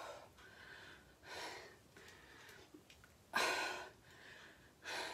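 A woman breathing hard from the effort of kettlebell squat presses: four short, forceful breaths through the mouth, one to two seconds apart, the third the loudest.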